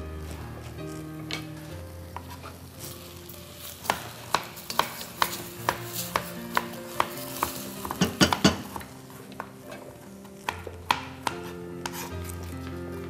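A spoon stirring in a metal pot on the stove and knocking against its side about twice a second, with a quick flurry of knocks a little past the middle. Background music with held notes plays throughout.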